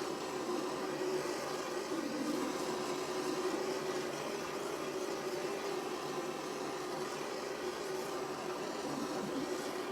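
Small gas blowtorch flame burning with a steady hiss, heating a lead pipe joint to melt tin solder.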